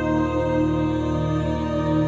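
Background music of long, held chords.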